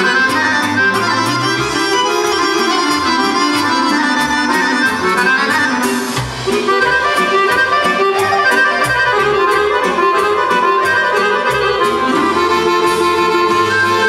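Chromatic button accordion playing a lively kolo folk-dance medley, with a quick, steady percussive beat behind it.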